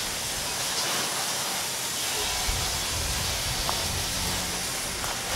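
Pressure washer spraying water onto a truck's bare frame, a steady hiss, with a low rumble joining about two seconds in.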